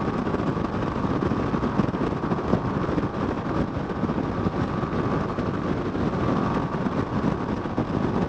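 Yamaha Fazer 250's single-cylinder engine running steadily at highway speed under constant wind rush on the bike-mounted microphone.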